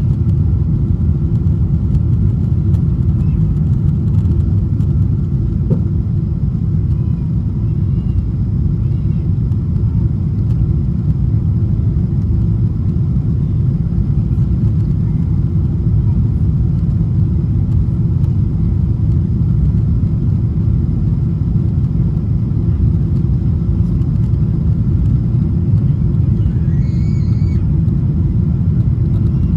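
Steady, loud cabin rumble of an Emirates Boeing 777-300 climbing after takeoff: engine and airflow noise heard from inside the passenger cabin.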